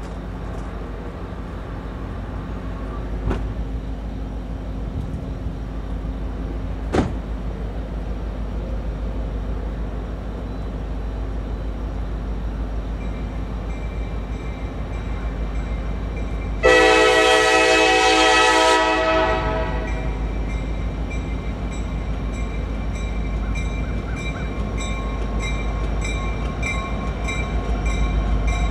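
Freight train's diesel locomotive approaching a grade crossing with a steady low rumble, and its horn sounds once, just past the middle, as a loud chord held for about two seconds. A bell rings steadily in the background, most plainly in the second half.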